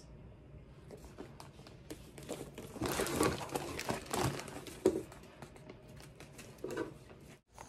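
Clear plastic packaging crinkling and rustling as a bagged garment is handled and lifted out of a cardboard box, with paper cards rustling; loudest about three to four and a half seconds in.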